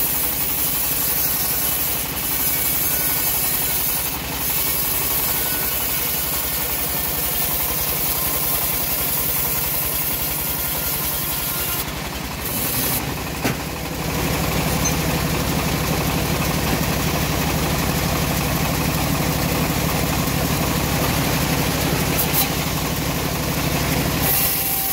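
Homemade engine-driven bandsaw mill running steadily as it saws lengthwise through an old teak log, a continuous mechanical drone. A little after 13 seconds the drone changes, with a stronger low hum from then on.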